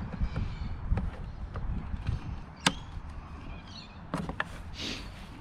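Objects being handled and moved in a pile of junk: a few scattered sharp clicks and knocks over a low rumble, the sharpest about halfway through and two more close together near the end.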